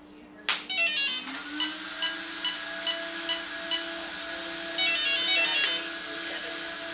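Castle electronic speed controller in an electric RC car powering up as the battery is plugged in. A sharp connector click is followed by a quick run of electronic start-up tones, and the controller's cooling fan spins up in a rising whine and then runs steadily. Six short beeps come about 0.4 s apart, then another short run of tones near the end.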